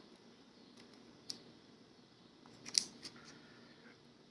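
A few light clicks from small lock parts being handled: a single click about a second in, then a small cluster of clicks a little later.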